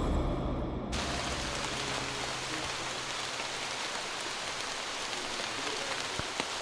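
Steady rain falling on rainforest foliage, an even hiss. Background music dies away over the first second.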